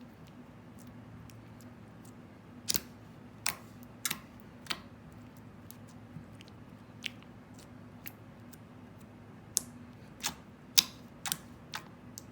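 Homemade clear-and-white slime with fake salt being pressed and squished by hand, giving off irregular sharp pops and clicks, about a dozen. The loudest comes a little before the end.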